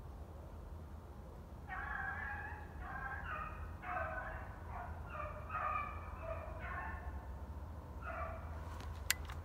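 Rabbit hounds baying on the trail, a run of short, repeated bawls from about two seconds in, with a brief pause near the end: the pack is driving the rabbit back toward the hunter. A single sharp click near the end.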